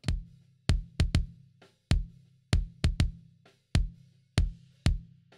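Heavily gated kick drum from a live-recorded kit playing back soloed: about a dozen kick hits in an uneven pattern, each a deep thump with a click, cut off quickly into silence. Snare bleed is barely audible between the hits.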